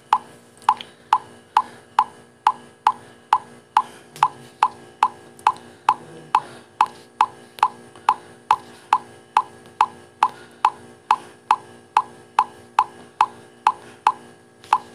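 WhatsApp's message-sent pop on a phone, repeating evenly about two and a half times a second, each a short pop. It is an automated 'bomb text' sending a batch of 100 identical messages one after another.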